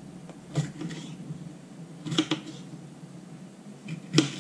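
Knife slicing a green bell pepper on a plastic cutting board: three sharp taps of the blade striking the board, the last and loudest near the end, over a low steady hum.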